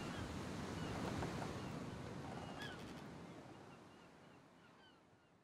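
Coastal ambience: a steady rush of wind and sea with a run of short bird calls, the whole fading away toward the end.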